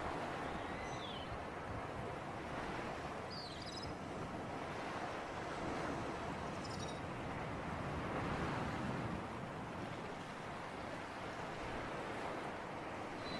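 Sea waves washing in with a steady breeze, the wash swelling and easing slowly, with a few short high chirps over it.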